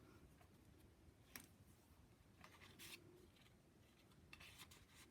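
Faint handling of stiff paper pages in a handmade book: a few soft rustles and light ticks, about a second and a half in, near three seconds and again towards the end, over near silence.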